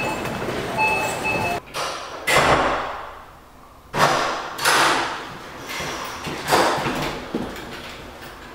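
Public restroom doors and a toilet stall door swinging and banging shut several times, each bang echoing off the tiled room.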